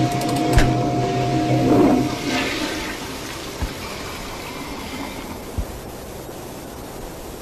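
A toilet flush sound effect: a rush of water starts about two seconds in and settles into a steady hiss. It follows a held droning tone with a low hum, and two short soft thumps come later.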